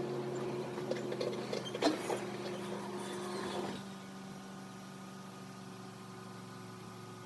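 Engine idling steadily, with a brief knock about two seconds in and a slight drop in level just before four seconds in.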